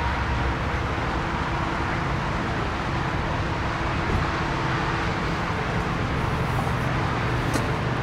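Steady outdoor traffic noise, a low rumble and hiss with a faint steady hum running under it.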